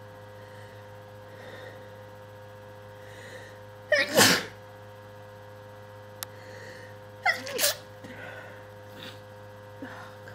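A person sneezing twice during an allergy attack, two loud, sudden sneezes about three seconds apart, with faint breaths between them.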